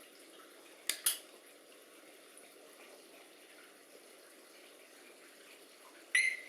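Harley-Davidson Smart Siren security alarm chirping: a quick double chirp about a second in, then a longer, clear, high beep near the end, over a faint steady hiss.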